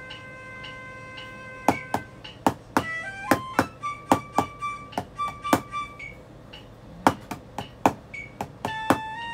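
Wooden drumsticks tapping a rubber drum practice pad, playing a snare-drum part with many sharp strikes, some in quick clusters. A recorded flute melody plays along.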